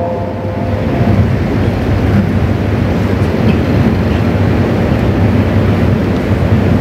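Steady low rumbling noise. The reverberant tail of a chanted voice dies away in the first second.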